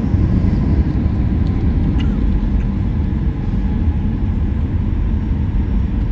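Steady low rumble of a jet airliner's engines and cabin air, heard from inside the passenger cabin, with a few faint clicks about two seconds in.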